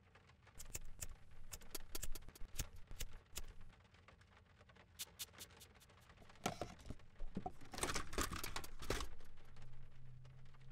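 Hands working at a car's plastic dashboard: a string of light clicks and taps, then about two seconds of scraping and rattling as the car radio is pulled out of its slot in the dash.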